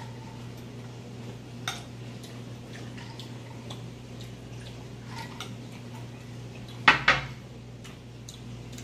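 Metal fork clinking and scraping against a glass plate as food is picked up, with light scattered taps, a sharper clink a couple of seconds in and two loud clinks close together about seven seconds in. A low steady hum runs underneath.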